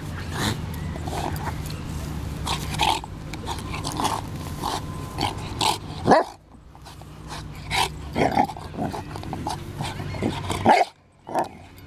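A St Bernard's short dog noises, many in quick succession with two brief pauses, as she sniffs about and rolls on her back in grass.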